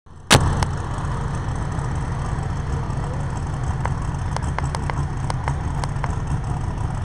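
Supercharged engine of an Allis-Chalmers pulling tractor, just over 300 cubic inches, idling with a steady low rumble as it rolls up to the line. A sharp click comes just after the start, and a few light ticks come through the middle.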